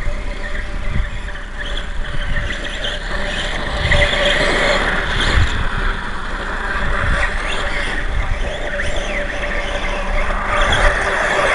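Wind rumbling and gusting on the microphone over a steady hiss, with the faint, rising and falling whine of a small RC motorcycle's motor as it rides through loose dirt.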